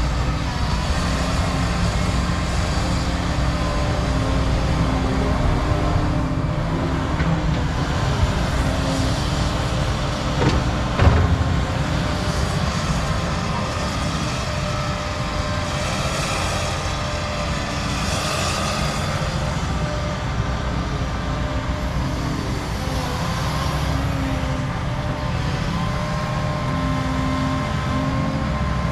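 Hydraulic excavators working topsoil: a steady diesel engine rumble with hydraulic whine that rises and falls as the arms move, and a single clank about eleven seconds in.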